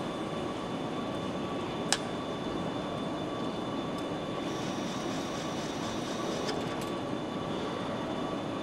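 Steady factory-floor machinery hum with a thin steady whine running through it, and a single sharp click about two seconds in.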